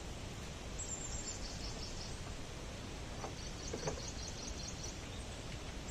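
A small bird chirping in two quick runs of high notes over a steady background noise.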